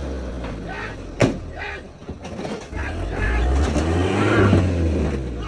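People shouting and screaming in alarm over a vehicle engine running low and rising in the middle, as a bull elephant charges and lifts a safari truck. A single sharp knock about a second in.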